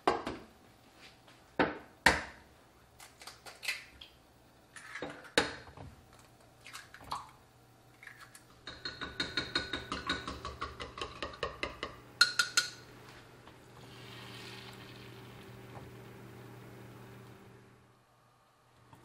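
Dishes and utensils clattering: a string of separate sharp knocks and clinks, then a quick run of clinks, about six a second, for a few seconds. A faint steady hum follows near the end.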